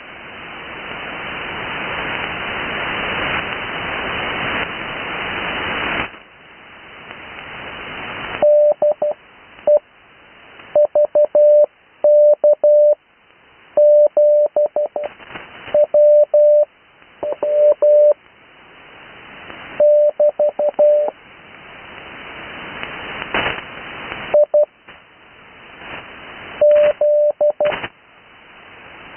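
Morse code (CW) received over an amateur radio on the 80 m band: a single steady tone keyed in dots and dashes, sent as characters with long gaps between them (Farnsworth spacing), over band hiss. For the first six seconds or so there is only rising hiss; the keying starts about eight seconds in.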